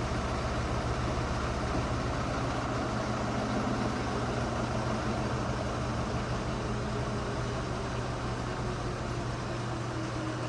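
High-efficiency washing machine in its final spin, draining and spinning at the same time, a steady mechanical hum with a faint sliding whine above it. The load is off balance and the machine is shaking.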